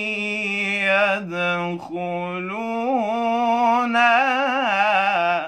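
A man's solo voice reciting the Quran in melodic tajweed style, drawing the words out in long held notes with wavering ornaments. There is a brief break for breath about two seconds in, and the voice stops suddenly near the end.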